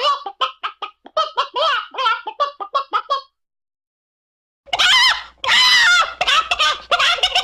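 Chicken clucking in a rapid run of short, high calls for about three seconds, then a sudden dead-silent gap, then a louder burst of excited cackling over a hissier background.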